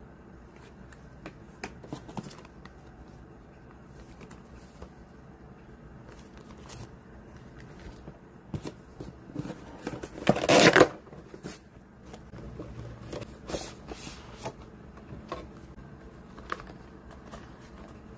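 Hands handling skincare packaging: cardboard, product cartons and a plastic pouch rustle and tap in scattered small clicks, with a louder rustle lasting about a second about ten seconds in.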